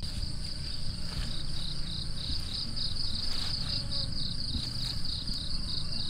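Insects chirping in a steady high trill with a regular pulsing of about three pulses a second, over a low rumble of background noise.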